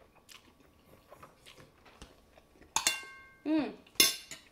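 Soft chewing, then a metal fork and spoon set down on a ceramic plate: two sharp clinks that ring briefly, about three and four seconds in, with a short hummed vocal sound between them.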